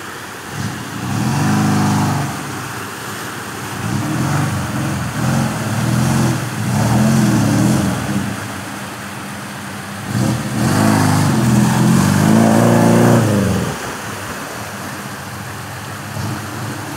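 Off-road 4x4's engine revving hard in several long surges, pitch rising and falling, as it claws up a steep muddy climb out of a stream bed under load.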